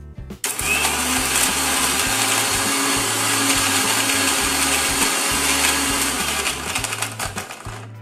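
Electric mixer grinder with a stainless-steel jar running at full speed, grinding basil leaves and cashews with oil into a pesto paste. It starts about half a second in, runs steadily for about seven seconds, and stops shortly before the end.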